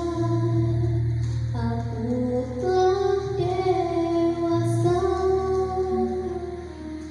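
A young girl singing solo into a microphone, holding each note for about a second, over an instrumental backing track.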